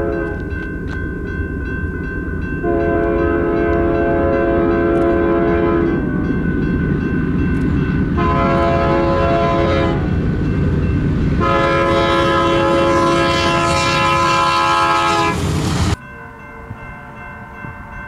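BNSF diesel freight locomotive's multi-chime air horn blowing for a grade crossing: a long blast, a short one, then another long one, over the low rumble of the approaching train. The sound cuts off suddenly near the end, leaving a quieter distant train rumble.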